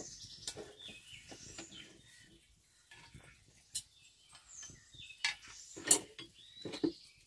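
Chopsticks and bowls clinking while eating, with a few sharp clicks in the second half, over birds chirping in the background.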